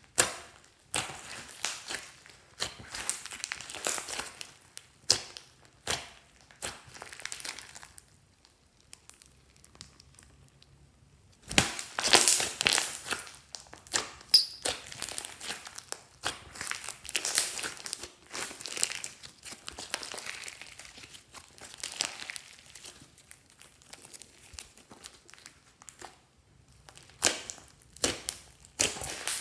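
Hands kneading and squishing slime with foam beads mixed in: irregular squishing and popping bursts, with a pause of a few seconds about a third of the way in.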